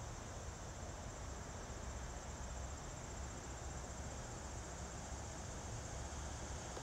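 Crickets chirping in a steady, high-pitched, fast-pulsing trill over a low steady rumble.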